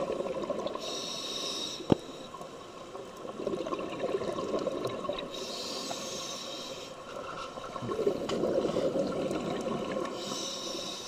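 Scuba diver breathing through a regulator: three short hissing inhalations about four to five seconds apart, with bursts of bubbling exhaled air between them. A single sharp click about two seconds in.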